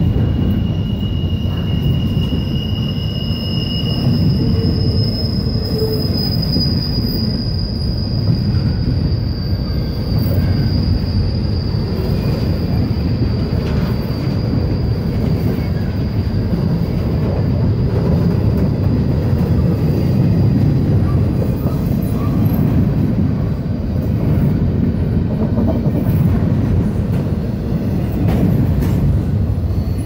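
Intermodal freight train cars rolling past with a steady low rumble. Thin high-pitched wheel squeals ride on top: one for the first few seconds, then a higher one from about four seconds to about fourteen seconds in.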